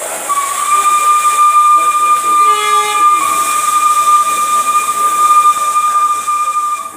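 Steam locomotive whistle blowing one long, steady high note over a hiss of steam, with a second, lower tone sounding briefly about two and a half seconds in.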